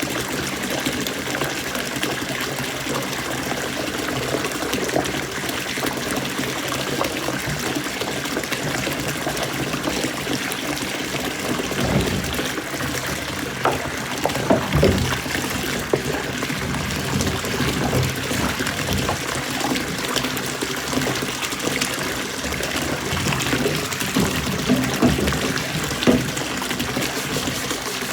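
Water running steadily from a tap, with a few knocks and clatters about halfway through and again near the end.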